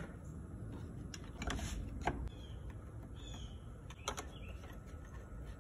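Scattered clicks and a short scrape as a VVT solenoid is wiggled and pried out of its bore in a Subaru 2.5-litre engine with a screwdriver, over a low steady rumble.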